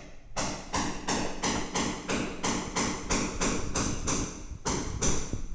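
Rhythmic hammering, about three blows a second, with a short pause near the end.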